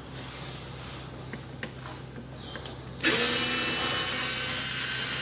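Cordless screwdriver with a Torx 20 bit running steadily for about two and a half seconds, starting about three seconds in, as it drives a screw out of the plastic underbody cover; a few faint clicks of handling come before it.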